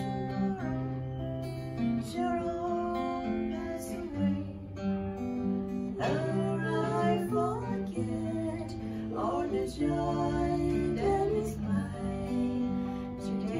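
Acoustic guitar strummed in steady chords, with a woman singing over it; the voice is clearest from about halfway through.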